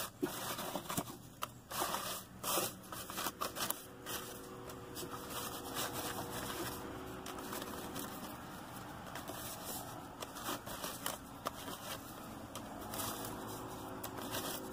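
Embroidered cloth patches being sifted by hand in a cardboard box: rustling and scraping, with busier handling at the start and near the end and a steadier, quieter rustle in between.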